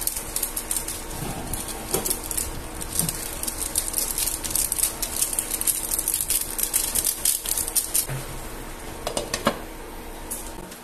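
Squid stew in tomato broth boiling in a pan, with irregular bubbling and popping. About nine seconds in there are a couple of knocks as a glass lid is set on the pan, and the bubbling then sounds quieter.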